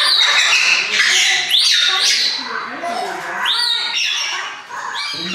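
Parrots screeching in an aviary: a loud series of shrill calls that each sweep upward, repeated roughly every second.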